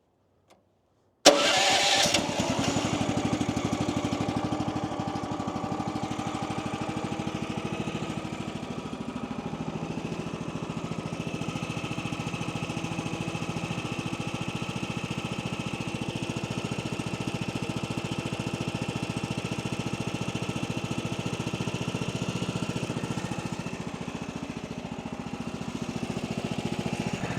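A portable sawmill's engine comes in suddenly about a second in, then runs steadily at an even speed.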